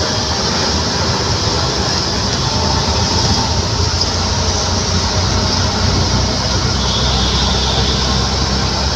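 Auto rickshaw under way: its small engine running under a steady rumble of road and wind noise.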